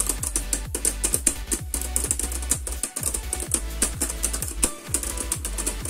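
Background music with a steady beat, and over it the rapid, closely spaced clicking of two Beyblade Burst tops, Killer Deathscyther and Deep Chaos, striking each other again and again. The quick little hits come from their thin, tightly packed blades touching.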